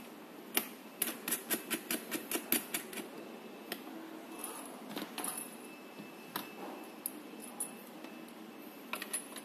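Test leads and their plugs rattling and clicking as they are handled and connected at a handheld three-phase energy meter field calibrator. A quick run of sharp clicks comes in the first few seconds, then scattered clicks.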